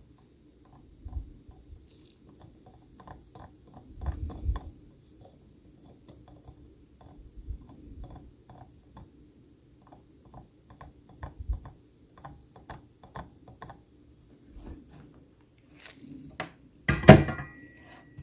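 Objects being handled on a work surface: scattered small clicks and light knocks, with a louder clatter about 17 seconds in.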